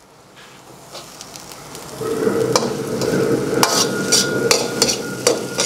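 Squid and vegetables stir-frying in a hot wok: a steady sizzle that comes up about two seconds in, with a metal wok ladle clacking and scraping against the wok five or six times as the food is stirred.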